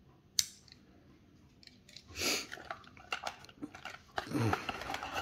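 A sharp click about half a second in, then uneven crinkling, rustling and small clicks of a small cardboard box and packaging being handled as a die-cast toy car is set down into it.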